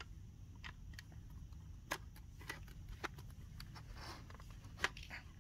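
Faint, irregular clicks and taps of hard plastic as a white plastic screw is turned into the yellow plastic base of a take-apart toy excavator.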